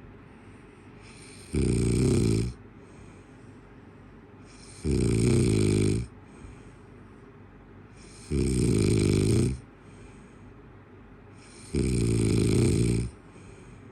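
Snoring in a steady rhythm: four loud, rasping snores about a second long, one every three and a half seconds or so, with a fainter breath between each.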